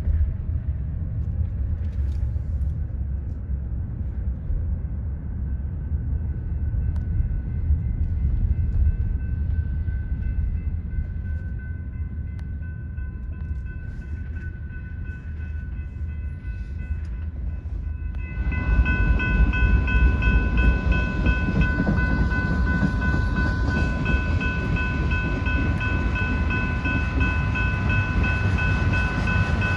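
Freight train of autorack cars rolling past a grade crossing: a steady low rumble of wheels on rail, with steady high ringing tones above it. The sound is muffled at first and becomes louder and brighter about eighteen seconds in.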